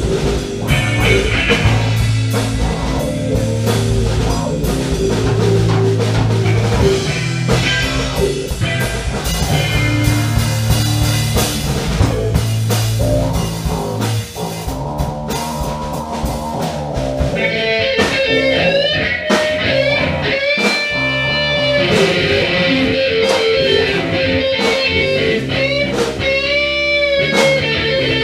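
Live band playing an instrumental blues-rock jam: drum kit, bass and guitar. In the second half a lead line comes in with bent, wavering notes.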